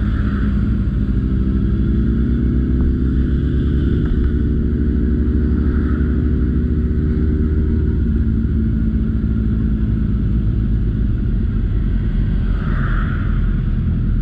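Motorcycle engine running on the move, a steady loud drone over a deep rumble; its pitched engine note fades about eight seconds in.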